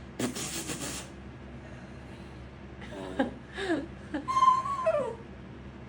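A dog's breathy huff into the ear, then a string of short whines and grumbling yowls that slide up and down in pitch, the highest held briefly about four and a half seconds in.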